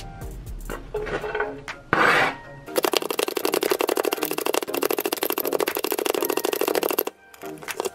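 Sunbeam Quick Chop, a manual plunger food chopper, pumped rapidly on onion: a fast clatter of clicks from about three seconds in to about seven seconds, over background music.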